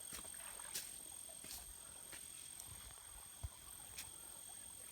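Faint tropical forest ambience: a steady high-pitched hum with a few sharp clicks and one low thump a little after the middle.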